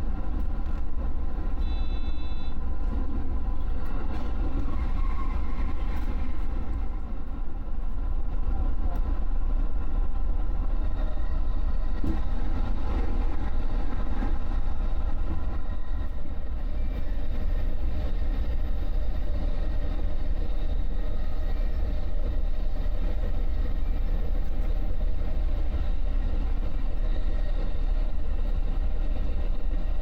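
JR West electric train running steadily at speed, heard from inside the front car: a constant low rumble of wheels on the rails with steady motor tones running through it.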